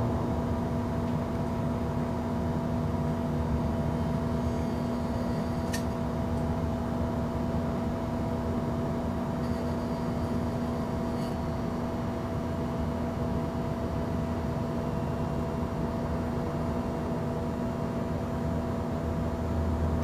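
Steady electrical hum from a Philips 150 W high-pressure sodium lamp fixture and its ballast, a held drone of several pitches over a low rumble, with one sharp click about six seconds in.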